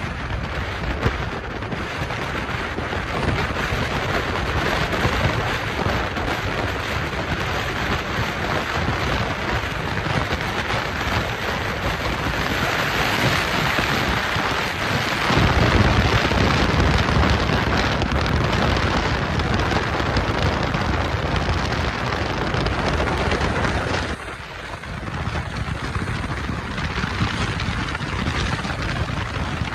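Freight train rolling past close by: a steady rumble and clatter of cars on the rails that grows louder about halfway through. About three quarters through the sound drops suddenly and picks up again as another passing freight train.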